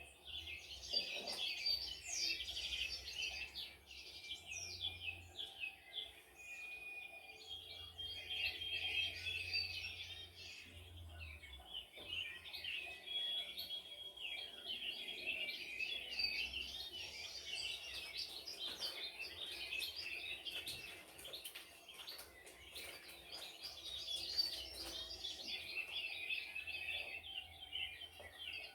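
Several birds singing and chirping at once: a dense chorus of high, overlapping chirps and trills, with now and then a short held whistled note.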